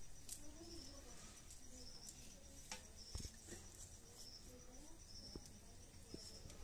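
Faint chirping of crickets, short high chirps repeating about once a second over a thin steady high trill, with a few faint knocks.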